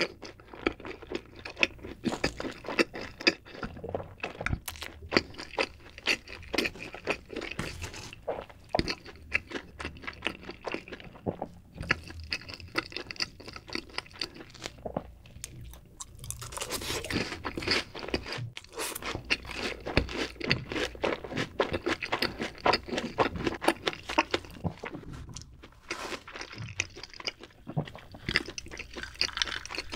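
Close-miked chewing and crunching of crispy fried cheese balls, with wet mouth sounds. The crunching pauses briefly about 15 seconds in, then comes back thickest for a few seconds after the ball is dipped in cheese sauce.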